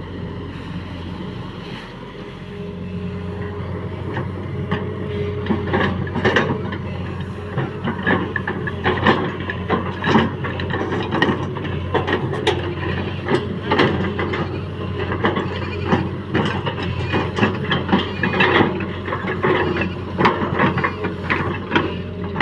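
JCB 3DX backhoe loader's diesel engine running steadily, with many irregular sharp knocks and clatters over it from about five seconds in.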